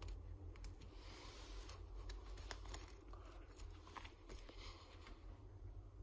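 Plastic sleeve pages of a trading-card binder being turned by hand: faint crinkling and rustling of plastic in two short stretches, with scattered small clicks and taps.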